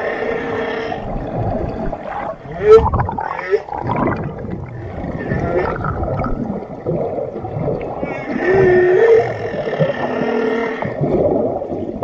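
Whale vocalizations: a series of pitched moans and squeals that glide up and down, with a short, loud call about three seconds in.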